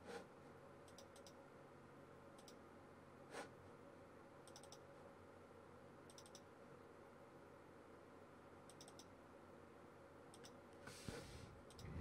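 Faint computer mouse clicks, singly and in quick pairs or threes, scattered every second or so over near-silent room tone.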